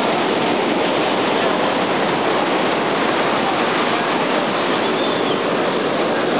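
Steady rush of ocean surf breaking on a sandy beach, an even wash of noise without pauses.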